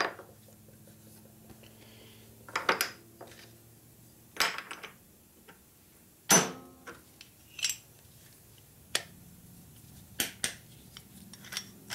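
Metal parts of a Harley Panhead rocker arm assembly clinking and clanking on a workbench as they are handled and tried for free movement. There are about eight separate sharp knocks, the loudest about six seconds in.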